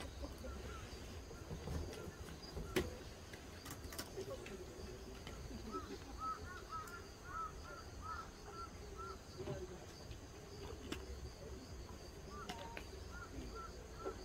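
A bird calling in quick runs of short chirps, about six seconds in and again near the end, over a steady low background rumble. Two sharp clicks sound a few seconds in.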